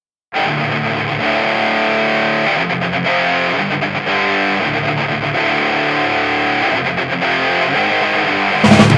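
Hardcore punk song intro: a distorted electric guitar plays ringing chords that change every second or so, then the full band with drums crashes in just before the end, noticeably louder.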